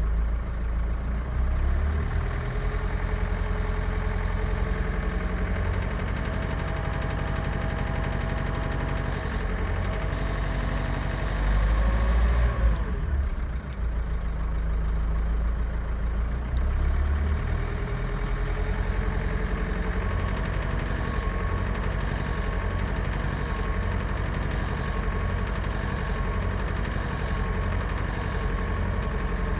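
Renault Kangoo's 1.5 dCi K9K diesel engine running at low revs with an injector knock, which the owner hears at 1250–1400 rpm. The revs rise briefly about twelve seconds in and settle back.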